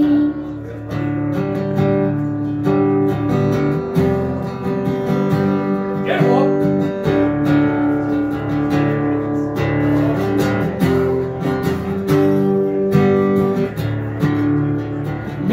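Acoustic guitar strumming chords in an instrumental break, with no singing.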